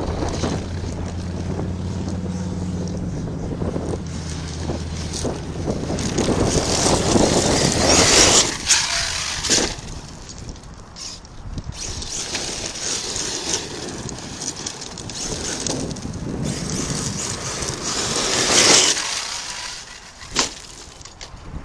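ARRMA Kraton 8S electric RC truck running over rough dirt and rocks. Its tires churn and rattle in two long loud surges, with a few sharp knocks as it bangs over bumps. A steady low hum sits under the first several seconds.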